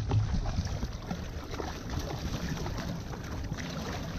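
Sea water sloshing and lapping against a kayak hull, with a steady low wind rumble on the microphone.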